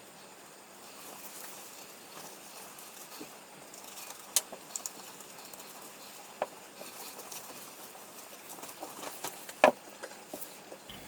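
Scattered light clicks and taps over a faint steady hiss, with a sharp click about four seconds in and a louder one near the end.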